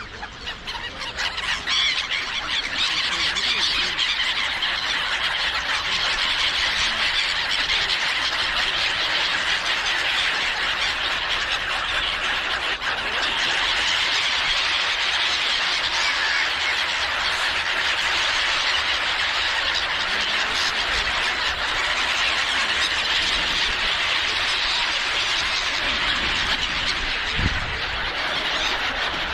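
A large flock of black-headed gulls calling all at once: a dense, continuous din of many overlapping high cries, building up over the first two seconds and then holding steady.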